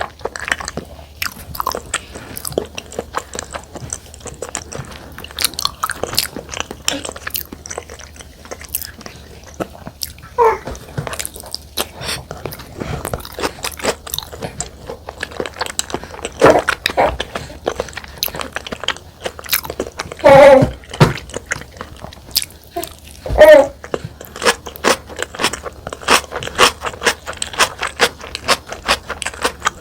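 Close-miked eating: chewing and wet mouth clicks and smacks of soy-marinated salmon and rice. Four loud, brief squeaky pitched sounds cut through, about ten, sixteen, twenty and twenty-three seconds in.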